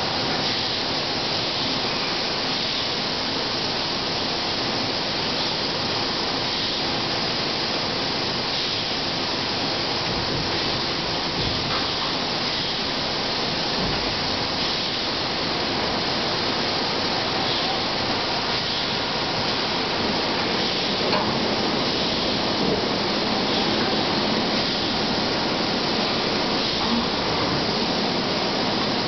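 Blow molding machine line for 20-litre jerry cans running in production: a steady, even mechanical din with faint clicks and a few low knocks around the middle.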